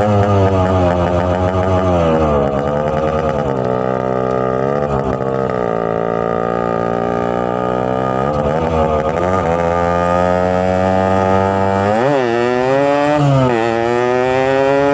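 Yamaha RX-King's two-stroke single-cylinder engine running on its first outing after a ground-up restoration. The revs fall and rise several times as the throttle is worked, with a quick sharp blip about twelve seconds in.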